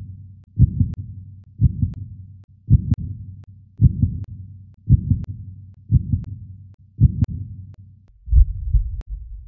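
Heartbeat: a low double thump, lub-dub, about once a second.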